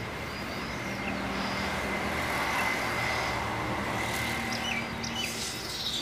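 Steady hum of road traffic, swelling for a few seconds and easing off, with a few short bird chirps near the end.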